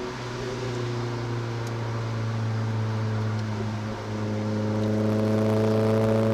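Renault Clio RS 200's naturally aspirated four-cylinder engine heard from inside the cabin, pulling at a steady pitch under a wash of road and tyre noise. About four seconds in it dips briefly, then its pitch climbs slowly and it gets louder as the car accelerates.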